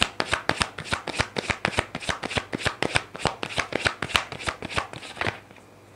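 A deck of tarot cards being shuffled by hand, the cards riffling and slapping together in quick strokes, about six a second. The shuffling stops about five seconds in.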